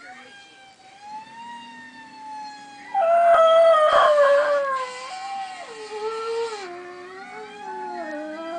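A fire truck siren wails faintly, and about three seconds in a dog joins in with a loud, wavering howl that slides lower in pitch toward the end.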